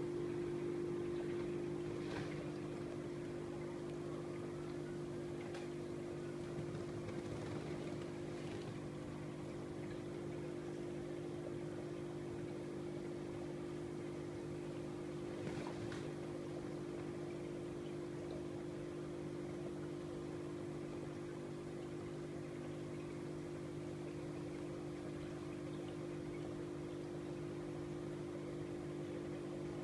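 Aquarium pump and filter running with a steady electrical hum, over a faint hiss of bubbling water.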